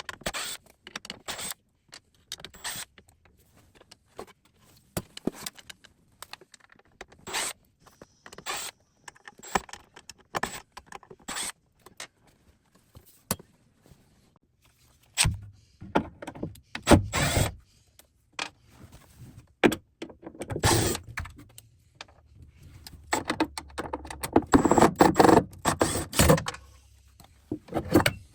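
Old metal drawer slides being taken off a face-frame cabinet: scattered clicks and clinks of metal hardware and screws, then, about halfway through, louder stretches of scraping with the whirr of a small motor.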